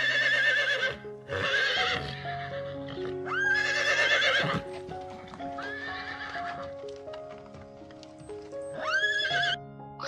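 A horse whinnying about five times, each call about a second long with a quavering pitch, the last a shorter one near the end. Background music with held notes plays underneath.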